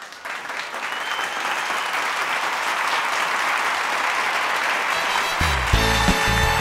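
Audience applauding, the clapping swelling up at the start; about five seconds in, music with a bass line comes in under the applause.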